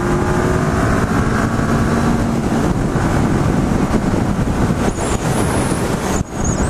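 Heavy wind noise buffeting a helmet-mounted microphone at highway speed on a Honda CB500F, with the bike's parallel-twin engine droning steadily underneath. The wind noise drops out briefly about six seconds in as the rider turns his head toward the mirror.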